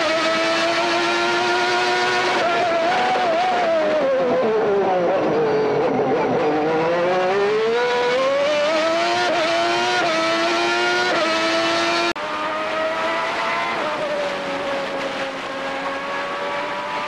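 Onboard sound of a 1991 McLaren-Honda V12 Formula One engine. Its high scream holds, then falls as the car brakes and changes down, and climbs again through several quick upshifts. About twelve seconds in, the sound cuts to a 1991 Ferrari V12 Formula One car's onboard: slightly quieter, its pitch dipping and then rising steadily under acceleration.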